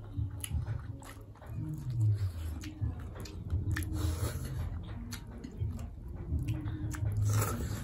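Chewing and mouth smacking of people eating rice and salad by hand, with many short, irregular wet clicks.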